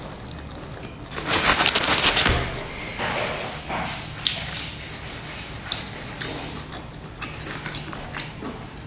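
A person eating dumplings close to the microphone: mouth-sounds of biting and chewing, with a burst of rapid crackling about a second in that lasts about a second, then scattered wet smacks and clicks.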